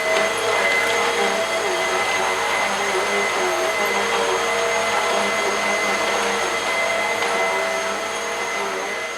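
Bissell upright vacuum cleaner running with a steady motor whine and rush of air, its pitch wavering slightly; it has just had its filters and canister cleaned out and is pulling strong suction. Near the end the sound begins to die away.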